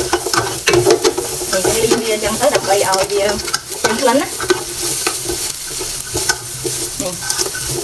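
Food sizzling and crackling in a little hot oil at the bottom of a tall aluminium stockpot, stirred with a spatula that scrapes against the metal.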